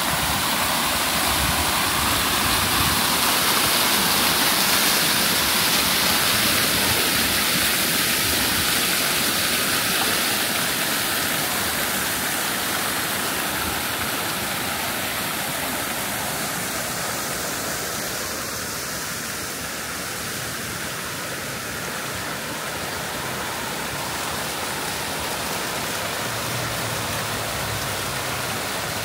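Fountain jets shooting up and splashing down into a pool, a steady rush of falling water. It is loudest in the first ten seconds and a little softer after.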